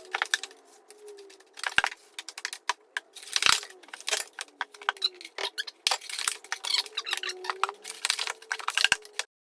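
Irregular clattering, tapping and rattling of tools and materials being handled during electrical work, with a few louder knocks. It cuts off abruptly just before the end.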